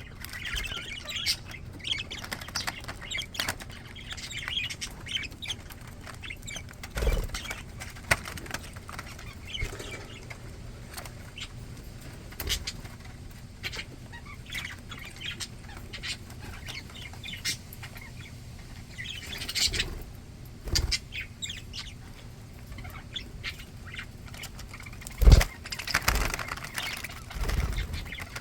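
Pet budgies (budgerigars) chattering with soft chirps, with flutters of wings and several sudden low thumps, the loudest near the end.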